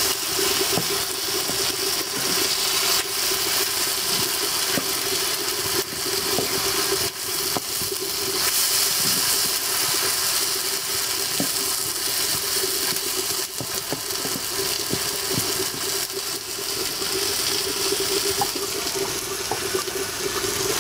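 Meat and vegetables frying in an iron karahi: a steady sizzle with the repeated clatter and scrape of a spatula stirring against the pan, over a steady low hum.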